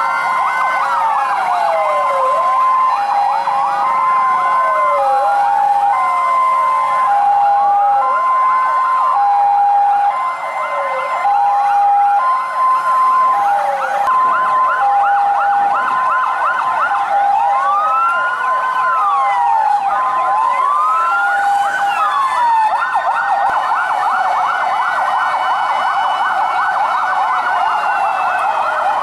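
Several emergency-vehicle sirens from airport fire-rescue trucks sounding together: a two-tone hi-lo alternating about once a second and a wail rising and falling every couple of seconds, with a rapid yelp taking over about three-quarters of the way through.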